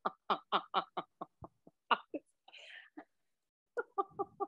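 A woman laughing hard in quick bursts, about five a second. There is a breathy gasp midway and another run of laughs near the end.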